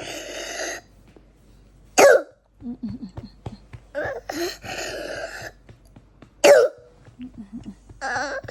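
A small child coughing hard: two sharp, loud coughs about four seconds apart, with long noisy breaths in between. This is the coughing of a pneumonia flare-up that leaves the child short of breath.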